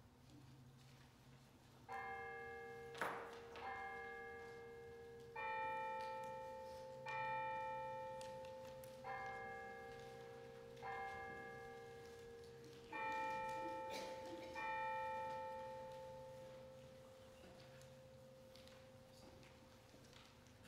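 Church bell struck eight times, about every two seconds, each strike left to ring and fade, sounding the start of worship. A sharp click comes just after the first strike.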